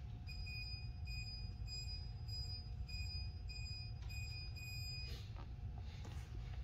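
An electronic beeper sounding a regular run of short, high beeps, a little under two a second, that stops about five seconds in, over a steady low hum.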